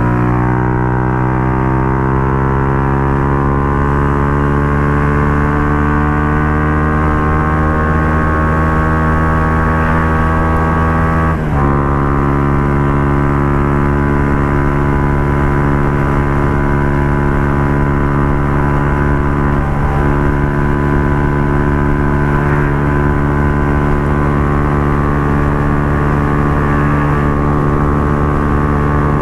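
Benelli RFS150i motorcycle engine through a Racing Line aftermarket exhaust, pulling in gear with its pitch rising for about eleven seconds. It then shifts up with a sudden drop in pitch and cruises at a steady note.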